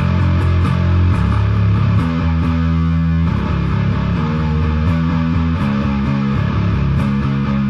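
Instrumental rock/metal music with a bass guitar playing a bassline alongside guitar. The notes change every half second or so, with a longer held chord about two to three seconds in.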